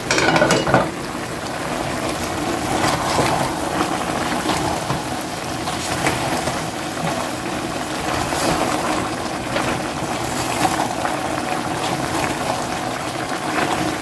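A pot of chicken and bottle gourd curry cooking uncovered: a steady sizzling, bubbling hiss with scattered clicks and scrapes of a spoon stirring through it, and a brief clatter at the start.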